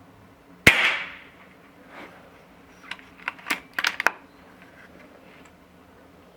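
A single shot from an Air Arms S510 sub-12 ft-lb PCP air rifle: one sharp crack with a short trailing echo, followed about two seconds later by a quick run of metallic clicks as the side lever is worked to cock the rifle and index the next pellet.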